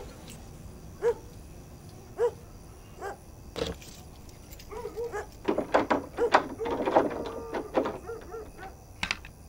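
A dog barking: single barks about once a second, then a fast flurry of barks.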